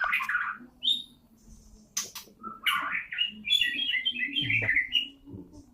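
Murai (Copsychus songbird) singing: a short burst of varied notes, a brief high note, then a longer run of rapid, varied chirps and whistles in the second half.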